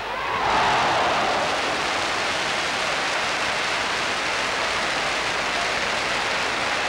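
Football crowd cheering and applauding a goal, a dense roar that swells about half a second in and then holds steady.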